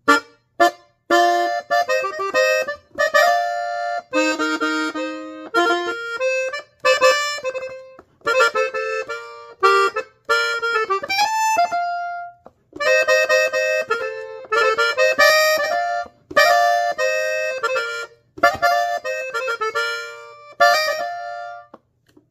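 Hohner diatonic button accordion tuned in F playing a norteño melody with bass chords in B-flat, in short phrases broken by brief pauses.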